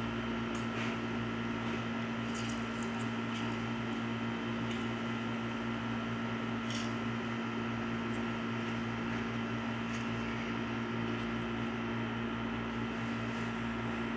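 Steady mechanical hum from a running household appliance or fan, with a few faint, light clicks of handling.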